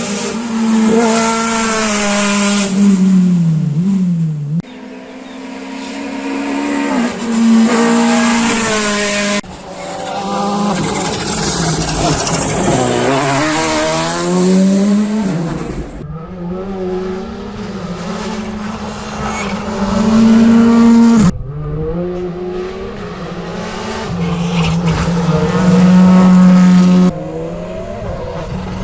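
A run of rally cars at full racing speed, engines revving high and dropping back again and again through gear changes. The sound changes abruptly about every five seconds as it cuts from one car's run to the next.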